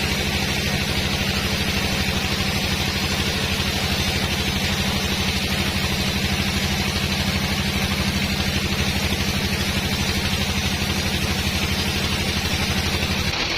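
Sawmill engine running steadily with a fast, even pulsing low hum and a hiss above it.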